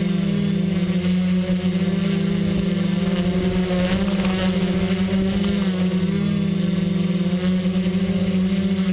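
XAircraft X650 V4 quadcopter's electric motors and propellers humming steadily in flight. The pitch wavers slightly around the middle as the throttle shifts.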